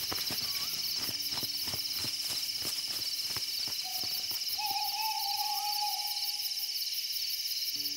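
Night ambience with a steady high chorus of insects and an owl hooting, one long wavering hoot held for over a second past the middle. A run of quick clicks, several a second, fills the first half.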